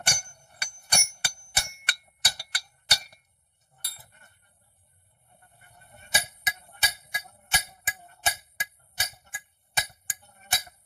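Hammer blows on metal, each a sharp strike with a short metallic ring: a quick irregular run, a pause of about two seconds, then steady blows about two or three a second.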